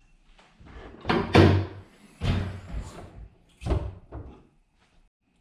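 Lexus GS400 hood being unlatched and raised: a few separate metallic clunks and rattles, the loudest about a second and a half in.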